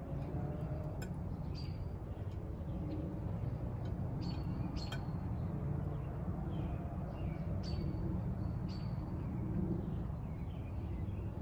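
Small birds chirping outdoors: short, sharp calls every second or two, clustered around five seconds in and again near eight to nine seconds, over a steady low background rumble.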